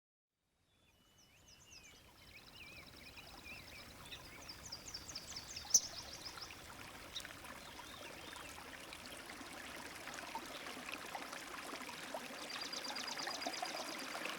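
Nature ambience of gently running stream water fading in, with high chirping trills over it in three short spells. About six seconds in there is a single brief sharp click.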